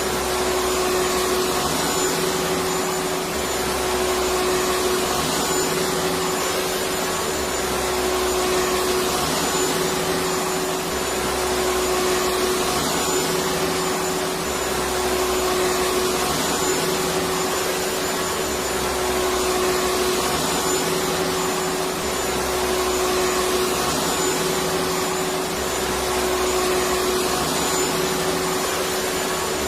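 Electric vacuum cleaner running continuously: a steady rush of air over a constant motor hum, with a low throb that swells and fades every few seconds.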